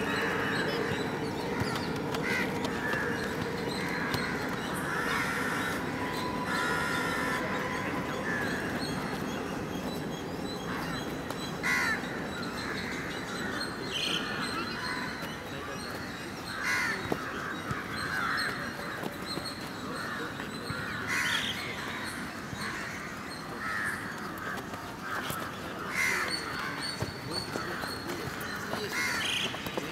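Crows cawing repeatedly throughout, with a few sharp thuds of footballs being kicked.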